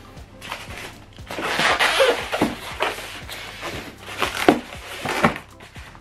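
Polystyrene foam packaging being handled: rustling and scraping for about a second, then a few sharp knocks, over quiet background music.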